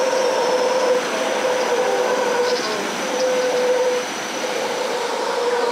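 Howler monkeys calling in a loud, unbroken chorus of overlapping calls. This is the troop's routine morning calling, not a sign that they are upset.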